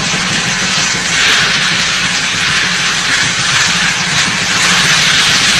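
Class 52 steam locomotive hissing loudly and steadily as steam jets out of its open cylinder drain cocks, with a faint low steady hum underneath.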